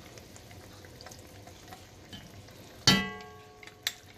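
Cream poured into a hot pot over a faint sizzle, then about three seconds in a loud ringing knock as the glass measuring cup is tapped against the rim of the enamelled cast-iron pot, the ring fading over about a second, followed by a smaller click.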